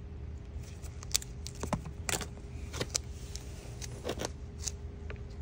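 Vinyl electrical tape being pulled off its roll and wrapped around wire connections: about half a dozen short, sharp crackles and rips, with small handling clicks.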